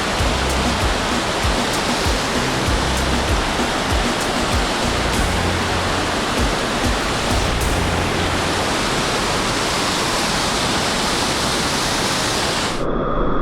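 Waterfall water rushing loudly and steadily, with wind buffeting the microphone in low thumps. The rushing cuts off abruptly near the end.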